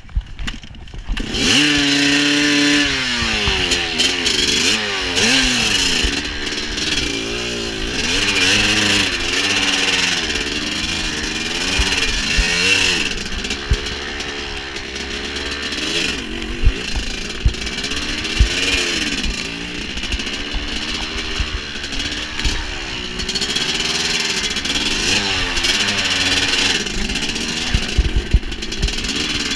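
Dirt bike engine revving up and down over and over, its pitch rising and falling with the throttle, picking up about a second in. Occasional sharp knocks are heard over it.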